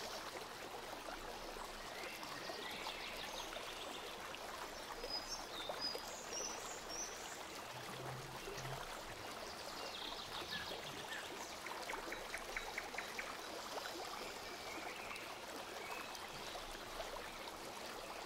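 Steady, even hiss of background noise, with a few faint high chirps and short runs of quick ticks now and then.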